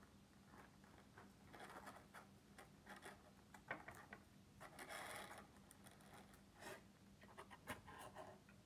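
Faint handling noise: rubbing and rustling with scattered light clicks as small plastic toys and their packaging are moved about, with a longer rustle about five seconds in.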